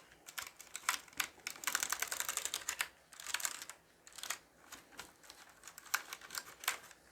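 A damp cloth wiped across a mechanical keyboard with its keycaps off, its switches clicking and rattling under the cloth over a soft rubbing. The clicks come in short spells with gaps, thickest about two seconds in.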